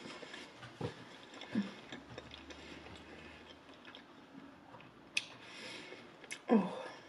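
A person chewing a mouthful of food with the mouth closed, with soft mouth clicks and lip smacks. Two sharper clicks come late on, and a brief murmured hum follows near the end.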